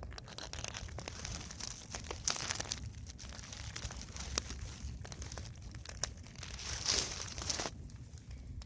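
Wood fire crackling with scattered sharp pops. There are two louder stretches of dense, hissing crackle, about two seconds in and again around seven seconds, over a low steady rumble.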